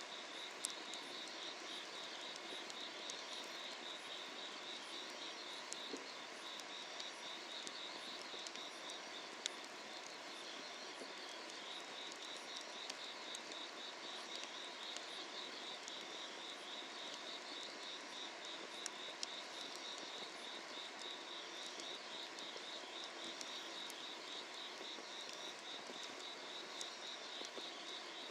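Summer-night insects chirping in a steady, fast-pulsing trill over a soft even hiss, with a few sharp pops of firewood burning under an iron cauldron.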